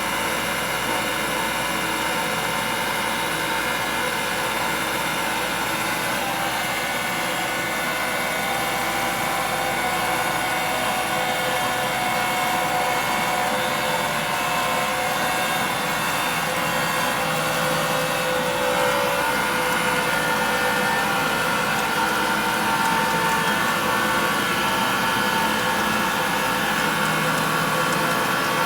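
Diehl DPG15 profile grinder's grinding wheel spindle running steadily, with no coolant flowing, giving a steady machine hum and whine. Its tone shifts slightly about two-thirds of the way through and again near the end.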